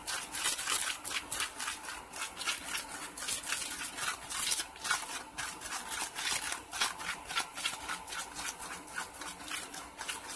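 Bondo body filler being stirred and scraped with a flat mixing stick in a plastic lid: quick repeated scraping strokes, a few a second, as the hardener is worked in until the colour is even.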